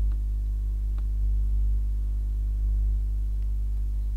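Steady low electrical hum with a stack of overtones, like mains hum on a recording, and a faint click about a second in.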